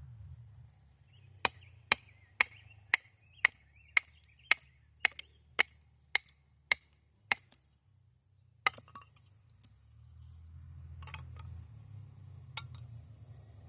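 A run of a dozen sharp strikes at an even pace of about two a second, like chopping with a hatchet, then after a short pause three more single strikes spaced well apart.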